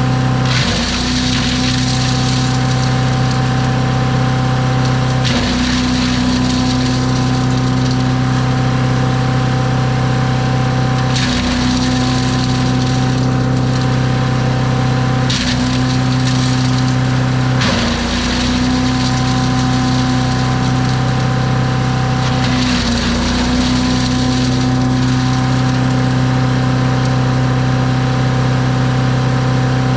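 Gas-engine wood chipper running and chipping brush. The engine's steady hum dips briefly about six times as branches are fed in and chewed, with bursts of crunching wood.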